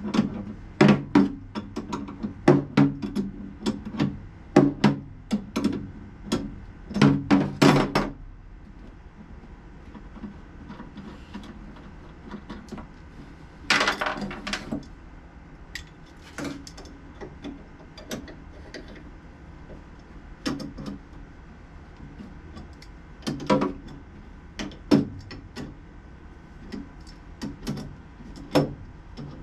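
Hand tools working the mounting nuts inside a Harley's hard saddlebag: a quick run of sharp clicks and knocks over the first several seconds, then scattered knocks and a short rustle about halfway.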